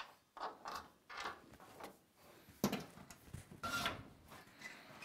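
Rubber fuel hose rubbing and creaking against a steel truck frame as it is fed through by hand, with irregular scuffs and a short squeak about three-quarters of the way through.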